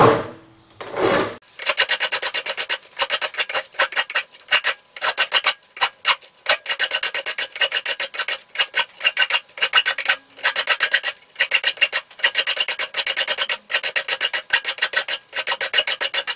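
Flat file rasping across the edge of a thin aluminium name plate in quick back-and-forth strokes, about four a second, trimming off the excess metal. The strokes start about a second and a half in, with a few short pauses.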